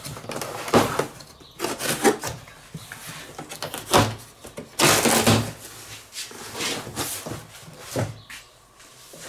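A large cardboard box being opened by hand: a knife slitting the packing tape and stiff cardboard flaps being pulled back, scraping and rustling. The sounds come irregularly, loudest about four and five seconds in.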